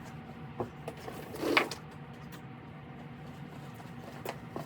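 A few light knocks and one louder scraping clank about a second and a half in, over a steady low hum: steel stock being handled while a cut is set up.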